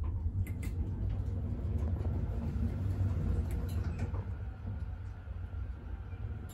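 Fuji elevator car standing at a floor: a low steady rumble with a light haze of noise and a few faint clicks.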